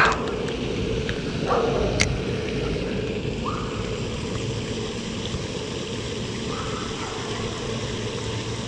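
Steady rushing splash of the pond's aerator fountain, with one sharp click about two seconds in.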